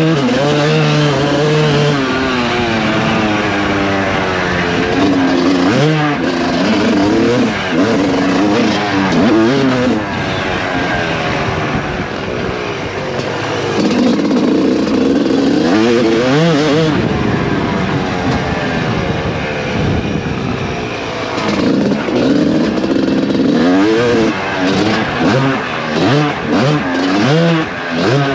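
Suzuki RM250 two-stroke motocross engine under hard riding, its pitch climbing and dropping again and again as the throttle is opened and shut.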